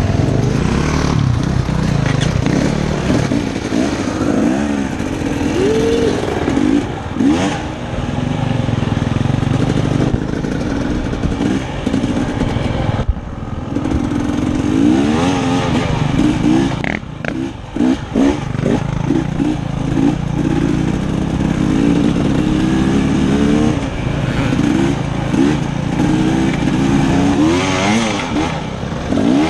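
Dirt bike engine running as it is ridden along a trail, its revs rising and falling over and over with the throttle, with a brief drop in revs about thirteen seconds in.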